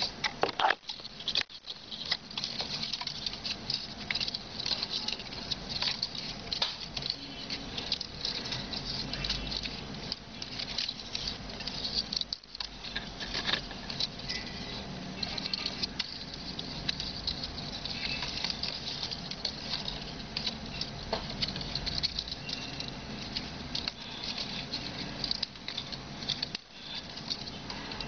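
Green palm leaf strips rustling and crackling as they are folded and plaited by hand: a dense, irregular run of small crackles and scrapes, broken by a few short pauses.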